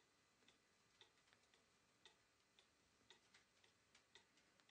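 Wall clock ticking faintly and evenly, about two ticks a second.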